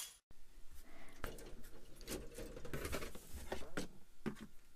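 Faint, scattered clicks and light rustles of small objects being handled on a workbench, over quiet room tone.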